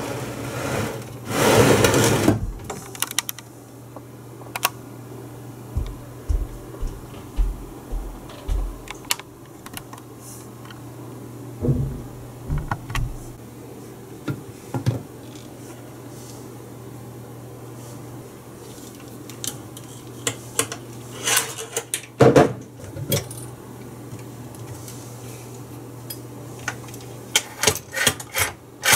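Hands working on a stainless-steel Landis & Gyr Cardvox 2000 payphone: scattered metal clicks, knocks and clunks, with a run of clatters near the end as the hinged housing is opened, over a steady low hum. A loud rustling noise comes in the first couple of seconds.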